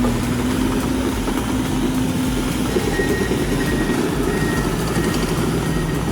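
Bulldozer diesel engine running steadily under load as it pushes sand, with a faint high whine joining about three seconds in.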